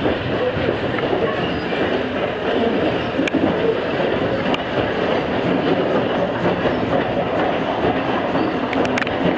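Steam-hauled passenger train rolling along the track, heard from aboard: a steady rumble of wheels on rails with a few sharp clicks.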